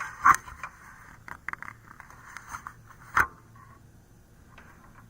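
Handling noise: a series of light clicks, scrapes and knocks, with a sharp knock about a third of a second in and another just after three seconds.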